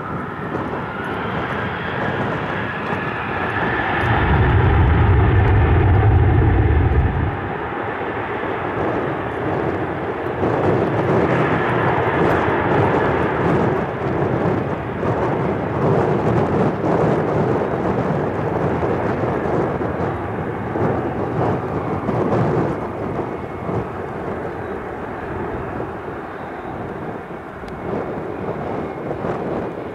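An airplane passes with a steady engine roar. A faint whine glides slightly down in pitch over the first few seconds, and the roar eases off toward the end. A loud low rumble sits under it from about four to seven seconds in.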